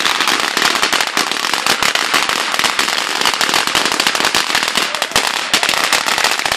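Fireworks crackling: a loud, dense, rapid string of small sharp bangs without a break.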